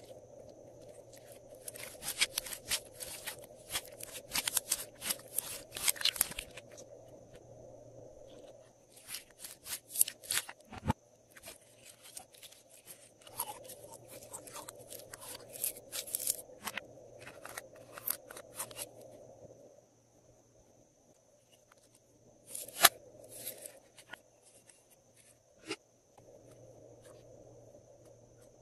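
Sticky clicking and crackling of slime being pressed and pulled by hand and squeezed out of a plastic bottle, coming in bursts with pauses. There is one sharp click about two-thirds of the way through, and a faint steady high whine underneath.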